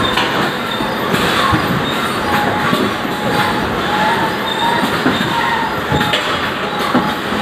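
Belt conveyors of a railway wagon-loading system running with filled sacks on them: a steady mechanical clatter, broken by irregular dull thumps of sacks landing and short squeaks.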